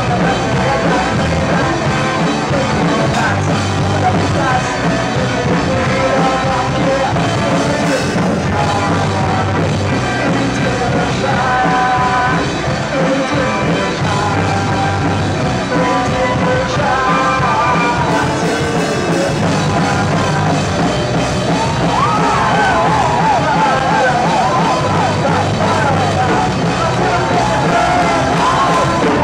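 Rock band playing live at a steady, loud level, drums and amplified instruments together. About three-quarters of the way in, a melodic line that bends up and down in pitch rises above the band.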